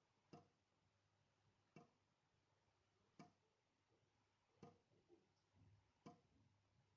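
Faint water drops from a dripping tap falling into a sink, one sharp drip about every one and a half seconds. There are five drips, with a couple of weaker patters between the fourth and fifth.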